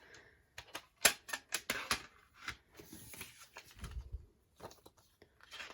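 A plastic album jewel case and its contents being handled: a run of sharp clicks and taps, with a soft low thump about four seconds in.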